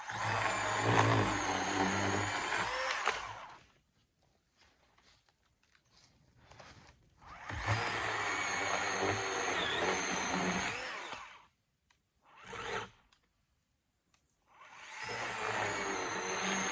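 Achiforce 20-volt cordless electric chainsaw running in three bursts of about three to four seconds each, cutting small limbs, with a short blip of the motor between the second and third burst. An even electric-motor whine with the chain running, no engine sound.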